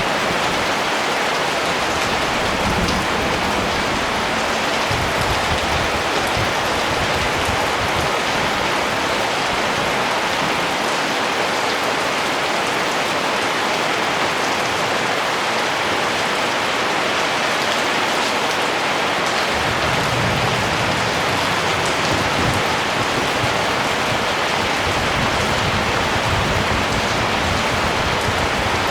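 Steady rain falling: an even hiss of many drops that keeps up without a break.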